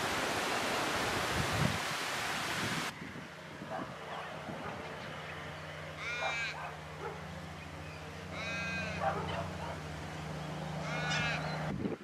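Rushing creek water for the first three seconds, then long-billed corellas calling: three harsh calls about two and a half seconds apart, over a low steady hum.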